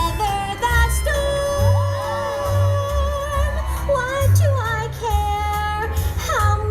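Music: a song with a high singing voice over changing bass notes.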